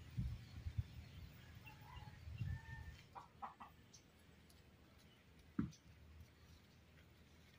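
Faint clucking of chickens, with a few short calls, and a few soft low thumps.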